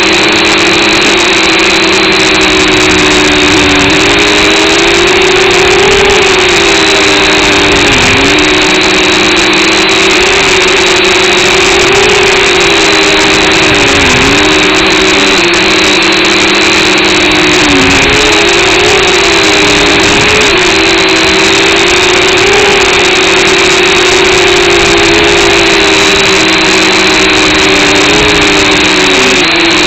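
Multirotor drone's motors and propellers whining steadily and loudly, in a few held pitches that dip and rise every few seconds as the drone adjusts its flight.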